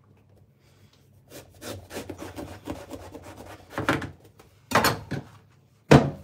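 Kitchen knife sawing back and forth through the thick rind of a banpeiyu (giant pomelo), a run of scraping strokes starting about a second in and getting louder, with one sharp knock near the end as the cut goes through.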